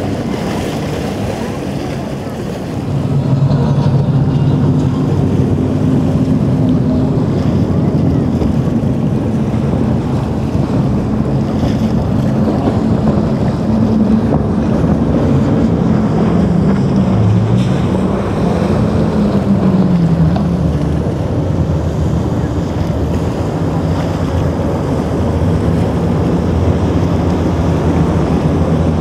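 Motorboat engines running over wind and surf, louder from about three seconds in. The engine note shifts and dips a few times as the boats work through rough inlet water, and wind buffets the microphone.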